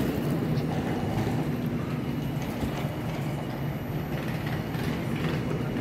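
Passenger train standing at a station platform, its equipment running with a steady low hum.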